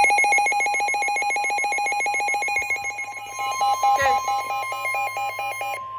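Emergency Alert System SAME header data burst from a NOAA Weather Radio broadcast: a rapid, chirpy warble of fast-alternating electronic tones. About three seconds in, the steady NOAA weather alert tone starts under it and keeps sounding after the warble cuts off near the end, signalling that a warning message follows.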